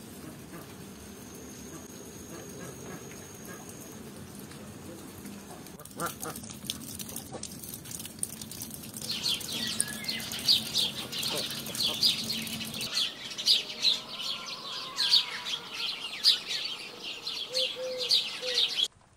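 Ducks and other birds calling. A steady low hum fills the first few seconds, then from about halfway through come sharp high calls, about two a second.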